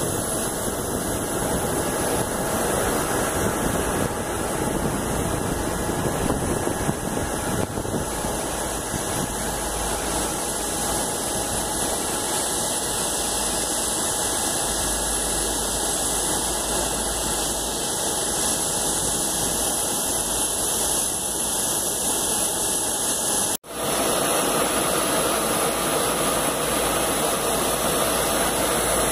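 Boeing 777-200 airliner's jet engines running as a steady rushing noise during landing rollout and taxiing. The sound breaks off for an instant about two-thirds of the way through, then carries on at much the same level.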